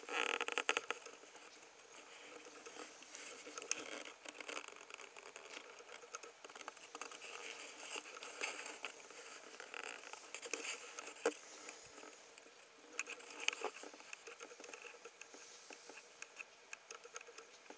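Newborn Norwegian Forest kittens nursing against their mother: faint, soft suckling clicks and fur rustling close to the microphone, with a brief squeak right at the start.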